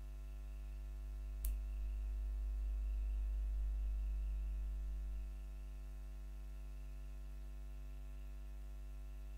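Steady low electrical hum with a single sharp click about one and a half seconds in. After the click the hum is a little louder for about four seconds, then settles back.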